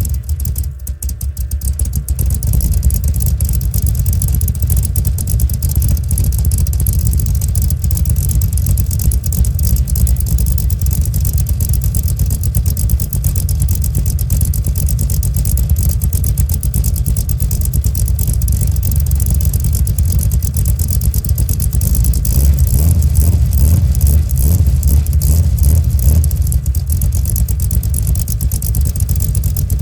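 Cammed 355 small-block Chevy V8 with an XR282 hydraulic roller cam running through Flowmaster Flow FX mufflers, a steady deep exhaust rumble. It dips briefly about a second in and swells somewhat louder in the later part.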